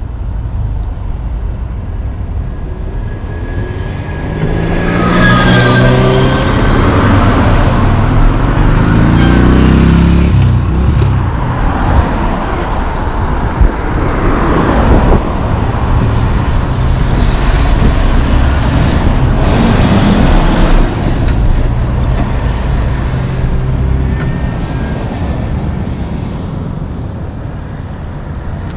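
Heavy road traffic passing close by, including an empty logging truck carrying its trailer piggybacked on its deck. There is a loud drive-by with the engine note dropping in pitch as it goes past, then a second loud stretch of truck and tyre noise that fades toward the end.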